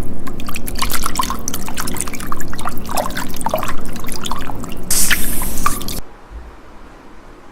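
Water foley: a dense run of drips and wet plops for about six seconds, with a short burst of hiss near the end before it stops suddenly.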